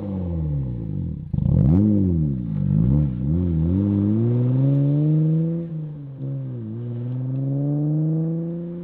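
2023+ Nissan Z's twin-turbo 3.0-litre V6 through a Competition titanium exhaust with the axle-back mufflers removed, revving. Revs fall at first, then a few quick throttle blips come a little over a second in, followed by longer climbs and drops in revs.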